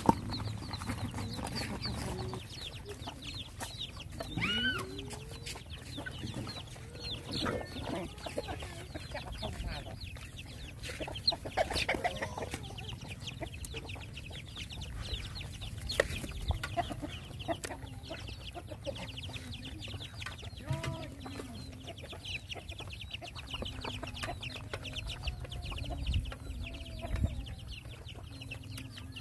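Chickens clucking, with scattered short calls that bend in pitch, over a fast fine ticking in the background.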